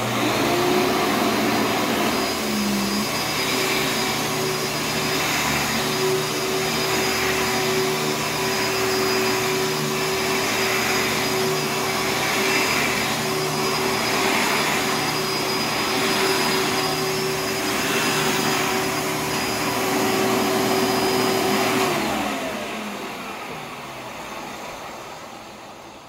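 Hoover Futura upright vacuum cleaner switched on suddenly and running loud with a steady motor hum and a high whine. The sound swells and dips in a slow rhythm as it is pushed back and forth over carpet. About 22 seconds in it is switched off and the motor winds down over a few seconds. The brush roll is noisy, which the owner puts down to it needing oil.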